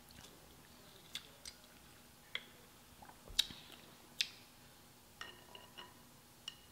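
Crab leg shells cracking and snapping as they are broken open by hand: a string of sharp clicks, about nine in all, the loudest two about three and a half and four seconds in.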